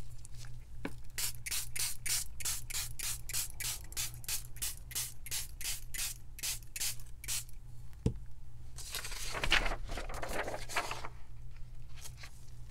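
Trigger spray bottle of coffee-and-tea dye being pumped in quick succession, a short hiss about three times a second for several seconds. A single knock follows, then a longer hiss lasting about two seconds.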